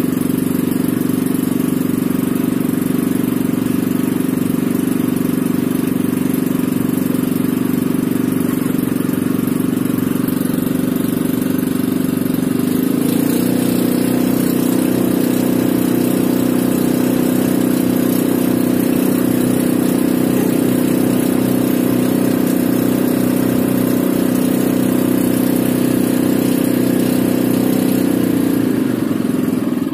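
Boat engine of a small outrigger boat running steadily. Its pitch and loudness pick up a little about 13 seconds in.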